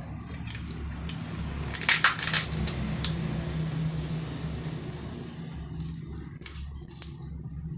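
Eating noises: a short cluster of sharp clicks and crackles about two seconds in, with scattered smaller clicks later, over a steady low hum.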